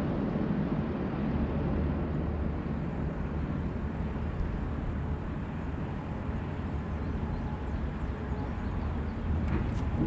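Steady low outdoor rumble with no clear pitch, with a few short sharp clicks near the end.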